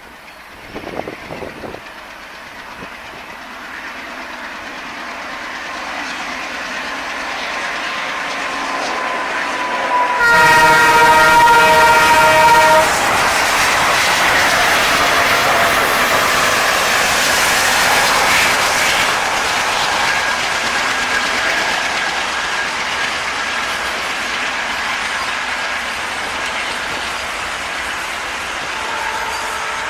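An ALCO WDG-3A diesel locomotive hauling a container freight train approaches and passes at speed. Its rumble swells for about ten seconds, then the horn gives one loud blast of about two and a half seconds as the engine passes. The wagons' wheels then clatter by, slowly fading.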